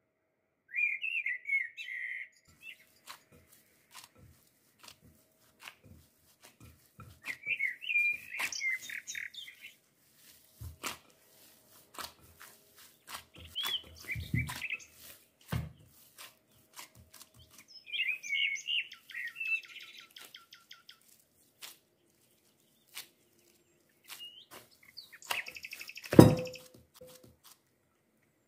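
A small bird chirping and twittering in short bursts, four or five times, over soft clicks and squishes of dough being kneaded by gloved hands in a glass bowl. Near the end comes a single thump with a brief ring as the glass bowl knocks against the stone countertop.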